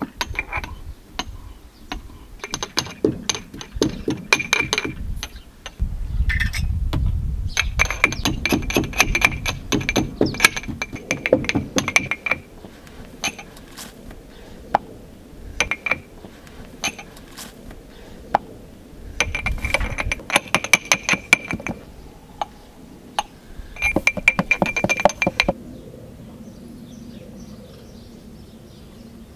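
Cylindrical metal hand mill grinding coriander seeds: rapid crunching clicks as the crank is turned, in four main spells of a few seconds each, with a few scattered clicks between them.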